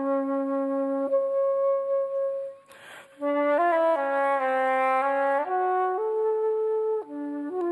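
Solo gold flute playing a slow melody of long held notes, with a quick breath taken between phrases about three seconds in.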